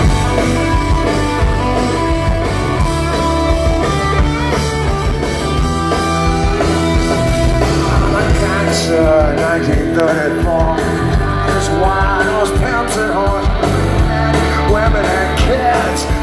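Punk rock band playing live, loud: electric guitars, bass and drums.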